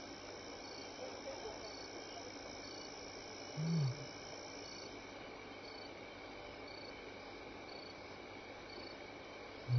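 Night chorus of crickets, a steady chirring with a short high note repeating about once a second. About four seconds in, a single short, low call falling in pitch, a lion's grunt of the kind lions use in contact calling.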